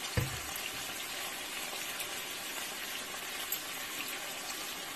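Chicken pieces sizzling steadily in a frying pan with a little liquid just poured in. There is a short thump just after the start.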